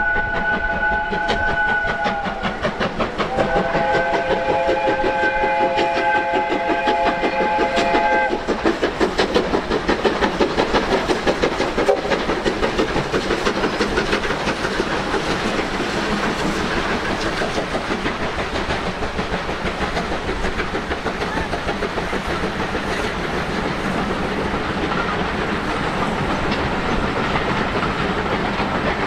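USATC S160 2-8-0 steam locomotives hauling a passenger train: a chime whistle sounds twice, the second blast longer, then the exhaust beats quickly and steadily as the locomotives work the train past, with the coaches' wheels clattering on the rail joints.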